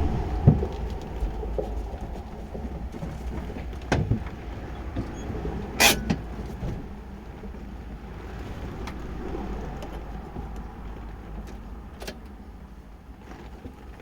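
Volkswagen Kombi van driving on a rough road: a steady low engine and road rumble with several sharp knocks and rattles from the body, the loudest about six seconds in.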